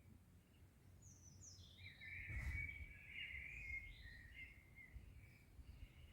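A songbird singing one varied warbling phrase of quick, sliding high notes, from about a second in to about five seconds in, over a faint low outdoor rumble.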